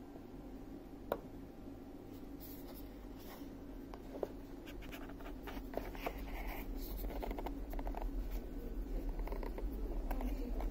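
Scratching and rustling of a smartwatch being handled and pulled out of its cardboard box insert, with two sharp clicks, about a second and about four seconds in, and the rustling getting busier in the second half.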